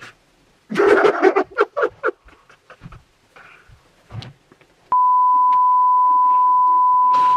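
A person's voice in short loud bursts for about the first two seconds. Then, about five seconds in, a steady high-pitched single-tone bleep starts suddenly and holds on, with a voice faintly beneath it: a censor bleep laid over speech.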